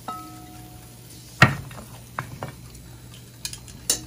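Glass bowl and ceramic plate clinking and knocking as grilled pork ribs are moved onto the plate. A ringing clink comes at the start, a loud knock about a second and a half in, then a few lighter clicks and another ringing clink near the end, over a faint low hum.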